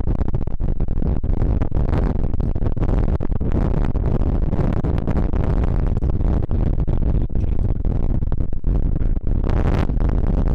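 Strong wind hitting a small Rode shotgun microphone that has no dead-cat windshield, giving loud, crackly, distorted rumble. The missing furry wind muff is why the audio breaks up like this.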